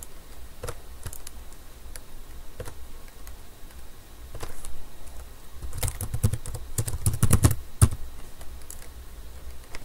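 Computer keyboard keystrokes clicking: a few scattered keys at first, then a quick run of typing from about six to eight seconds in.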